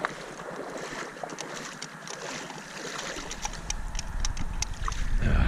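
Wind buffeting the microphone, a low rumble that comes in about halfway and grows stronger, over a steady hiss with small scattered clicks and rustles.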